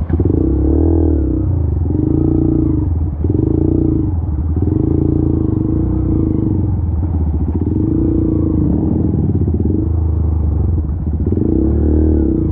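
Honda CRF150 trail bike's single-cylinder four-stroke engine revved in about six repeated surges, pitch rising and falling with each blip of the throttle, while the bike labours through a muddy, flooded stream bed.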